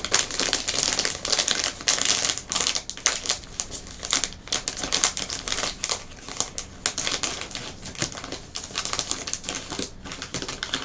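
Snack packaging crinkling as it is handled and opened: a dense, irregular run of crackles that thins out toward the end.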